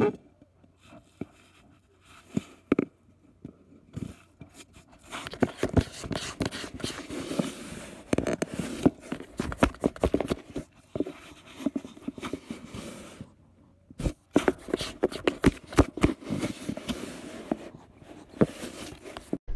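A cat scratching and scraping at the ragged edge of a hole in a cardboard box. Sharp clicks and scraping come in dense runs after about four seconds of near quiet, with a brief pause partway through.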